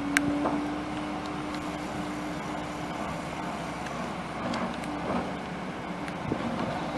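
Tracked excavator's diesel engine running steadily close by, with a steady whine through the first three seconds and a sharp click just after the start.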